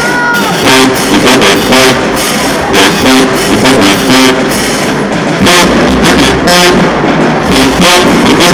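Marching band playing loudly, with the sousaphones nearest and dominant, blowing a low brass line over a steady beat.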